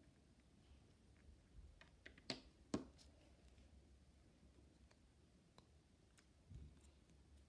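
Quiet handling of a fingerboard, with two sharp clicks a little over two seconds in as the small wooden deck and its wheels knock against the tabletop, and a few fainter taps and rustles otherwise.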